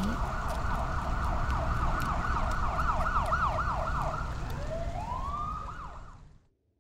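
Ambulance siren wailing in fast up-and-down sweeps over a low rumble. It slows to a few long glides and fades out near the end.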